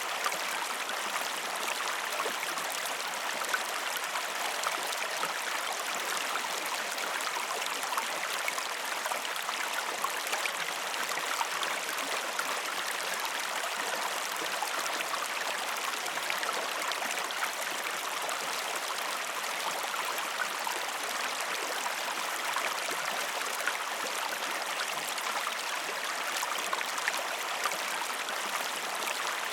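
Waterfall water rushing and splashing steadily, an even wash of sound dotted with many small splashes.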